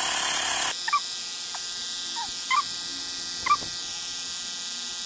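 The buzzing of a Xiaomi Mi portable electric air compressor inflating a bicycle tyre cuts off abruptly under a second in. Over a faint background, about four short, high animal calls follow, each a quick rise and fall in pitch.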